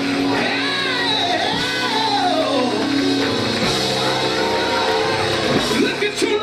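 A preacher singing into a microphone in long phrases that slide up and down in pitch, over held chords of church music.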